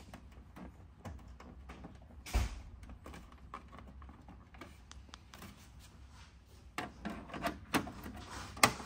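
Hands handling the plastic rear panel of a Xerox WorkCentre 7830 copier as its cable connector is screwed in and the rear cover is fitted back on: small scattered clicks and taps, a sharp knock about two seconds in, and a run of plastic clicks near the end, the loudest just before the end as the cover goes into place.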